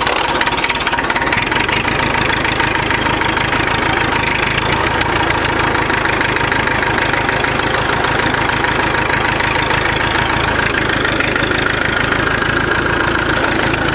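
Massey Ferguson 65 tractor's four-cylinder diesel engine running steadily.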